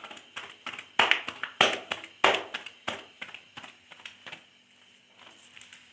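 Hands slapping and patting the dough of a stuffed radish paratha to stretch it thin, with no rolling pin. There is a run of sharp slaps about every half second, easing to lighter taps after about three seconds.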